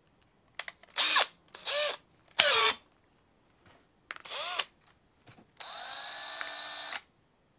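Cordless drill's motor triggered in four short bursts, each whining up in pitch and winding back down, then run at a steady speed for about a second and a half near the end. A few light clicks come in between.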